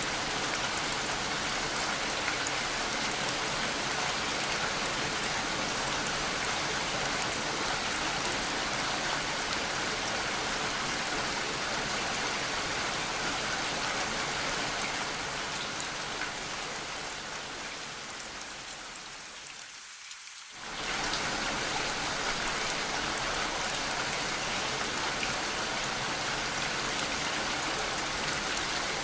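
Steady rain falling on surfaces, an even hiss of drops. About two-thirds of the way through it fades down over several seconds, then comes back suddenly at full strength.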